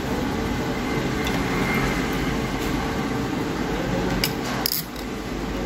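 Steady mechanical hum and hiss in a small room, like a fan or air conditioner running, with two short clicks a little over four seconds in.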